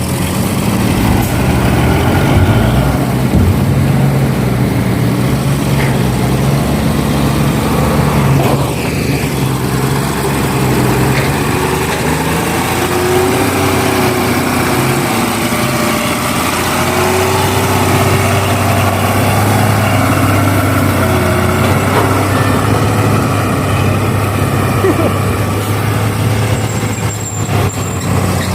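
Heavy truck diesel engines running and idling, the low engine note steady with a few shifts in pitch.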